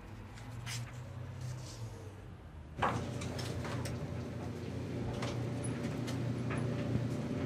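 Faint small taps and rustles, then from about three seconds in a steady low hum with scattered rustles and small knocks as clothes are handled on a counter.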